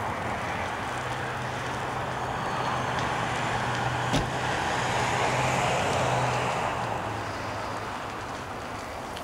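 A car going past on the road, its engine hum and tyre noise swelling and then fading away, with one sharp click about four seconds in.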